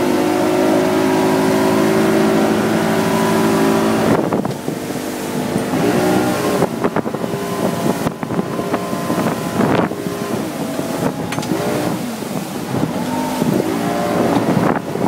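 Johnson 150 outboard motor running the boat at speed. The engine note holds steady for about four seconds, then rises and falls repeatedly.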